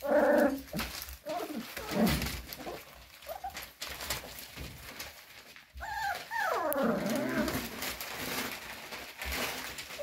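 Cocker spaniel puppies whining: a short wavering whine right at the start and a longer one about six seconds in that slides down in pitch, over the rustle of paper sheets under their paws.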